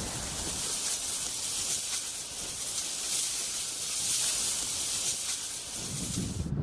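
Water spraying with a steady high hiss that cuts off abruptly near the end.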